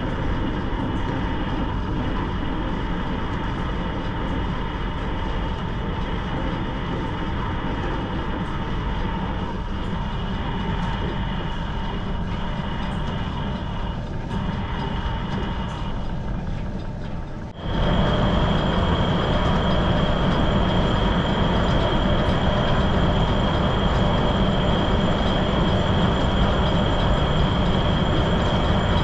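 Belt-driven lathe running steadily while a tool turns the outside of a thin-walled bushing, peeling off curly chips. A little after halfway the sound breaks off briefly and comes back louder, with a steady high whine over the running.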